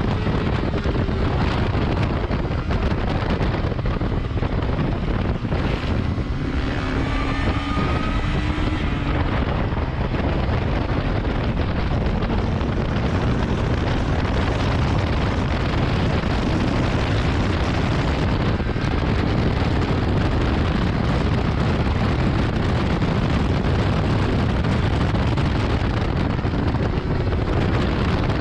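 Heavy wind rushing over the microphone of a camera mounted on a 2019 Yamaha R6 at track speed, with the 600 cc inline-four engine running beneath it. The engine's pitch slides about between five and nine seconds in, as the bike slows for a corner and accelerates out.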